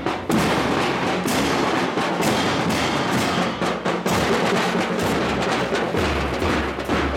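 Marching band drums, a bass drum among them, playing a steady march beat.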